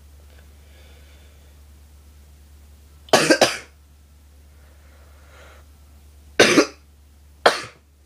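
A person coughing with a harsh, barking cough in three bouts: a quick run of about three coughs three seconds in, then two more bouts close together near the end.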